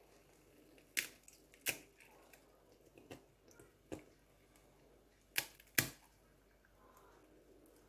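Kitchen utensils knocking and clicking against cookware: about six sharp, separate knocks, in pairs about a second in and again past the middle, with single ones in between.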